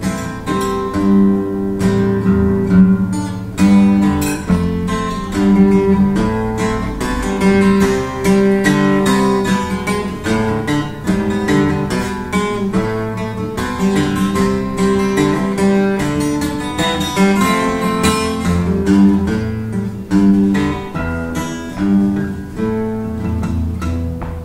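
Steel-string acoustic guitar played solo, the chords picked out note by note in a steady, flowing pattern.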